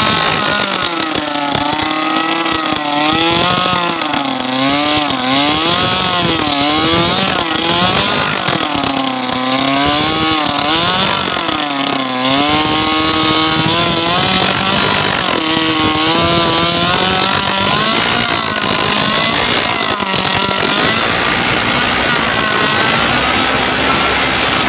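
Small petrol engine driving a 6 cm four-blade propeller on a shaft in shallow water, its revs swinging up and down every second or so for the first half, then running more steadily. The propeller churns and splashes the water.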